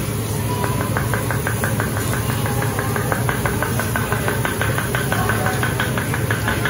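Tall wooden seasoning mills being twisted over the griddle: a rapid run of grinding clicks, about ten a second, starting about half a second in. A steady low hum lies underneath.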